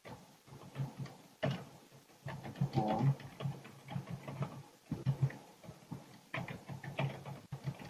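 Computer keyboard being typed on, a quick irregular run of key clicks with short pauses, and a brief pitched sound about three seconds in.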